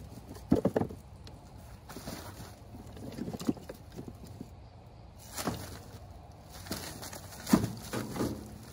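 Oak smoker chunks clunking together as they are grabbed by hand from a crate and dropped into a sack: a handful of irregular wooden knocks.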